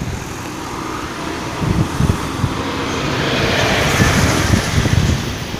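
Road traffic driving over a level crossing: a lorry passes close by, growing louder to a peak about four seconds in, with cars going by.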